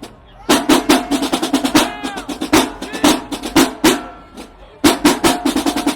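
Marching band drumline playing a fast cadence of snare and tenor drum strikes with bass drum. It starts about half a second in, breaks off briefly after about four seconds, and comes back in.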